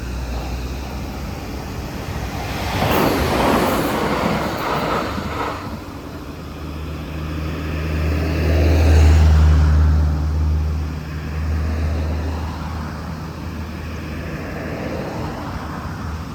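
Road vehicles passing: a car goes by with tyre noise about three seconds in, then a low engine drone swells to a peak near the middle and slowly fades.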